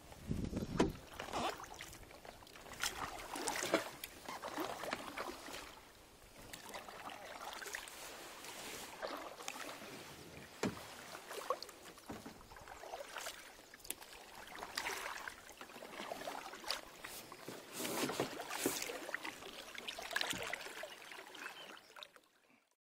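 Wooden kayak paddles dipping and pulling through river water: a series of splashes and swishes, roughly one every second or two.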